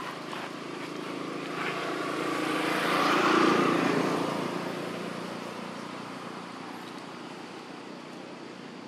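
Engine of a passing vehicle running, growing louder to a peak about three and a half seconds in, then fading away.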